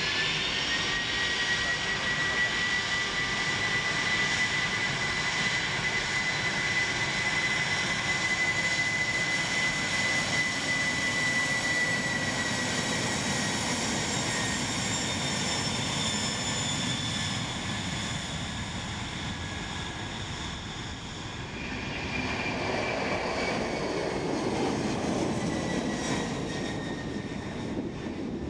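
Four Pratt & Whitney PW4056 turbofans of a Boeing 747-400 at takeoff power during the takeoff roll and climb-out: a steady high fan whine over a broad rumble. The whine drops slightly in pitch as the aircraft passes, and the rumble swells again about two-thirds of the way through.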